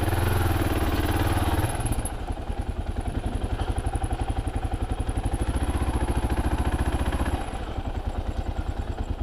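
Kawasaki KLR 650's single-cylinder four-stroke engine running with an even beat. It gets louder under throttle for the first second and a half or so, and again for a couple of seconds around six seconds in.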